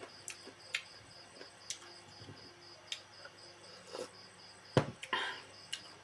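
A cricket chirping steadily in a fast, even pulse, about four or five chirps a second, under scattered sharp clicks and smacks of eating. The loudest is a knock about five seconds in, followed by a brief rustle.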